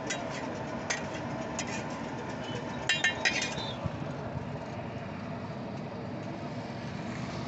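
Sharp clinks of serving utensils against the pan and plate: a few scattered clicks in the first couple of seconds and a quick run of about four about three seconds in. Behind them is a steady hum of street traffic.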